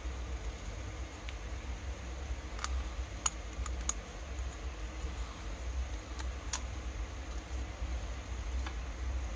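A handful of light, sharp clicks from a metal piston ring and a Stihl 070 chainsaw piston being handled in the fingers during ring fitting, over a steady low hum.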